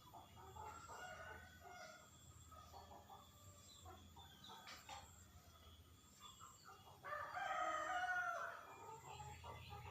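A rooster crowing once, about seven seconds in, the loudest sound here, with softer scattered bird calls before it.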